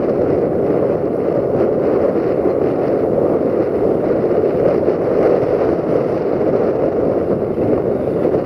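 Electroputere LDE2100 (060-DA) diesel-electric locomotive's Sulzer six-cylinder engine running steadily under load while hauling a container train, a constant rumble that neither rises nor falls.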